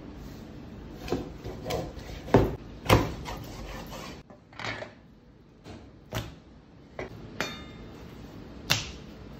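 A large chef's knife and thick swordfish steaks knocking on a plastic cutting board as the fish is cut into steaks: a string of sharp knocks, the loudest two about two and a half and three seconds in, then fewer and fainter ones.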